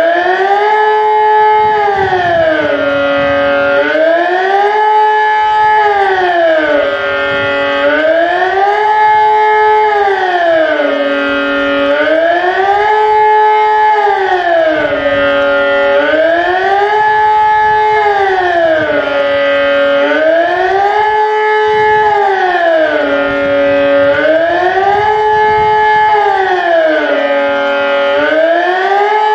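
ET 751 civil-defence siren sounding the general alarm signal in a siren test. It gives a loud wail of two tones together that rises, holds at the top, falls and holds low, over and over about every four seconds.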